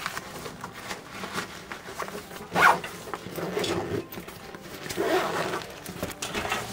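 Zipper on a Shimoda Designs Explore v2 30 backpack being pulled several times in short strokes, the loudest about two and a half seconds in.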